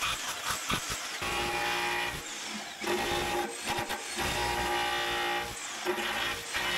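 Electric rotary hammer with a flat chisel bit chipping cured Chockfast epoxy chocking compound off a steel engine bed. It runs in several bursts with brief pauses between them.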